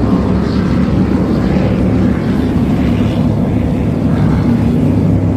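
Motorboat engine running steadily at speed, a loud continuous low drone with wind and water noise over it.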